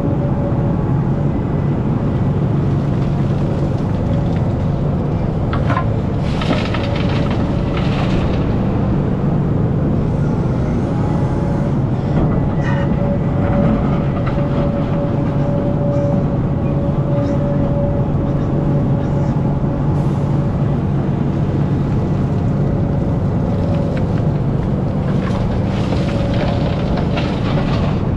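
Hidromek excavator's diesel engine running steadily under working load, with a faint whine running over it. Two spells of scraping and rattling come about a quarter of the way in and again near the end, as the steel bucket works through dry dirt.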